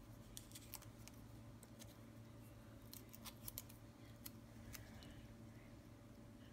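Faint, scattered ticks and crinkles of small paper stickers being peeled and handled, with a little cluster of clicks about halfway through.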